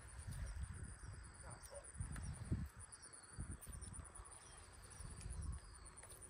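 Crickets chirping steadily: a rapid, even, high-pitched pulsing. Several low rumbling bursts come and go over it, the loudest about two and a half seconds in.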